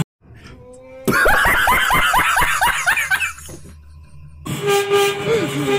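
A man's loud, high-pitched burst of laughter: a rapid run of ha-ha sounds lasting about two seconds, then fading away.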